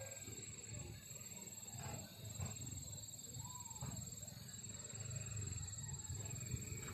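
Wind rumbling and buffeting on a phone's built-in microphone, with a few faint high calls over it, one arching up and down about halfway through.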